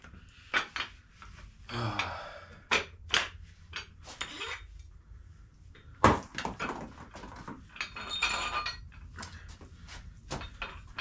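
Metal weight plates being handled, with several sharp clanks (the loudest about six seconds in) and two short scrapes about two and eight seconds in.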